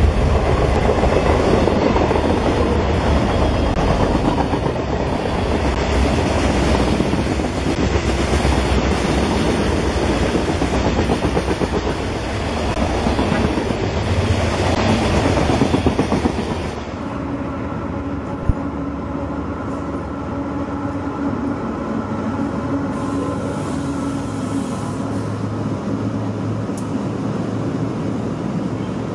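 BNSF freight train passing at speed: diesel locomotives go by, then tank cars and covered hopper cars rumbling and clacking over the rails. About 17 seconds in, the sound changes to a quieter passage of covered hopper cars rolling by, with a faint steady whine.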